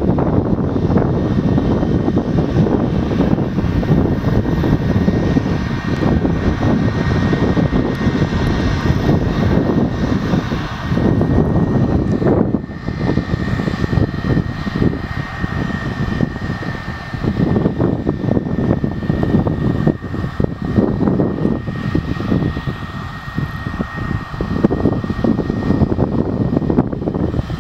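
Twin rear-mounted jet engines of a small jet running on the runway: a steady rush of engine noise with a thin high whine held through the middle.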